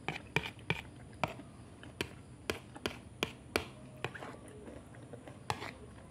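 Eating sounds from a person chewing a mouthful of rice: a run of about ten sharp clicks and smacks, unevenly spaced, mostly in the first four seconds with one more near the end.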